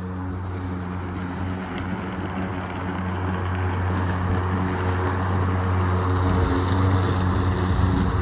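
Ryobi 20-inch 40-volt brushless battery lawn mower running while cutting grass: a steady electric motor hum with blade and grass noise, growing louder over the middle of the stretch.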